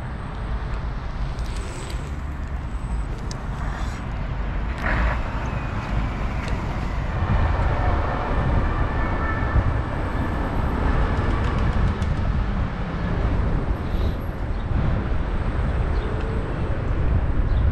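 Wind on the microphone and city traffic noise while riding an electric scooter through the streets, with a few knocks and a faint steady whine for several seconds in the middle.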